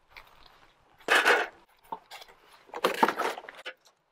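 Cardboard box and the plastic ChickenGuard door unit being handled as the unit is lifted out of its packaging: two spells of rustling and scraping, about a second in and again around three seconds in.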